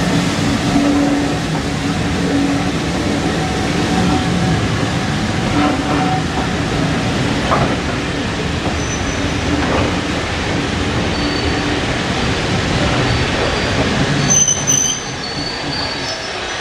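Train hauled by LNER Q6 steam locomotive 63395 moving through the station: a steady rumble of coach wheels on the rails with a few knocks. A brief high wheel squeal comes about 14 seconds in, and the sound then drops a little.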